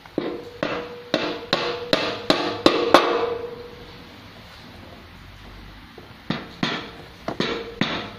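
Hammer tapping at a grey plastic drawer and its fixings on a plywood sewing-machine table top: a quick run of about nine light blows, a pause of about three seconds, then five more blows near the end, with a faint ringing tone under the strikes.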